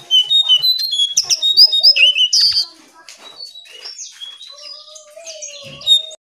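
Jongkangan songbird singing: a loud, rapid run of high chirps and trills for the first two and a half seconds, then quieter calls with a drawn-out lower whistle. A short thump just before the sound cuts off.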